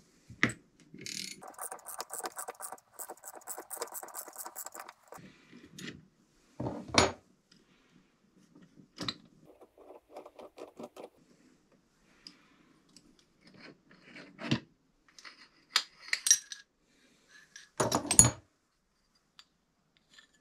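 Metal hand tools clinking and knocking on the aluminium parts of a Rohloff Speedhub while its hub cap is pulled off. There are runs of rapid, even clicking about two seconds in and again near ten seconds, and sharp metal clanks about seven, fourteen and eighteen seconds in.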